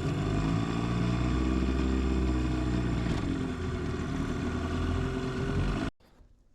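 Boat's outboard motor running under way, its pitch rising and then easing back, with wind noise over it; the sound cuts off abruptly near the end.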